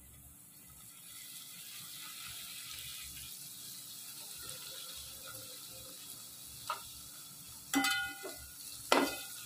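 Oil sizzling in an aluminium pot as chopped fresh coriander hits the hot fried onion and garlic. In the last few seconds a metal ladle stirs and clanks against the pot three times, ringing briefly.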